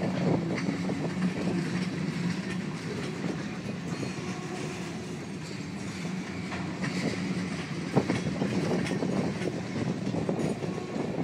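Covered hopper freight cars rolling past, steel wheels clicking over the rail joints, over a steady low hum. One sharper click about eight seconds in.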